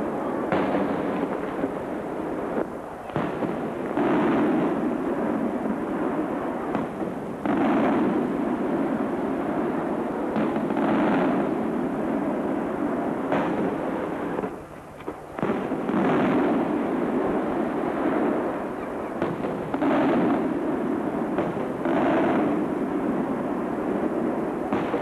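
Maltese aerial firework shells bursting one after another, a dozen or more booms whose rumbling tails run into each other, with one brief lull about two thirds of the way through.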